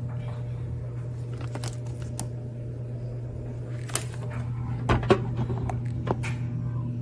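A few sharp clicks and knocks of kitchen handling, the loudest about five seconds in, over a steady low hum.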